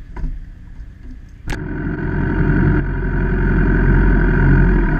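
A few faint clicks, then a sharp click about a second and a half in, after which a motorcycle engine is heard idling steadily.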